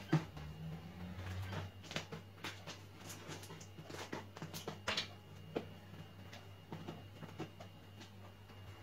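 Fluffy shaving-foam slime being kneaded, squeezed and stretched by hand, giving irregular small clicks and pops of air, a few of them louder, over a steady low hum.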